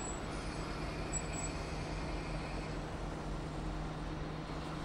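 KiHa 40 diesel railcar pulling slowly into a station platform, its diesel engine running with a steady low hum. A high brake squeal dies away as it begins and chirps again briefly about a second in.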